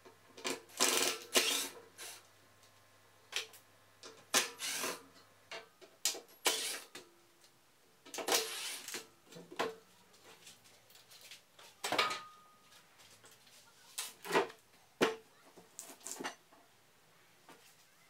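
Intermittent clinks, knocks and clatter of metal parts being handled as a Kreg router table's steel stand is taken apart, with one short metallic ring about twelve seconds in.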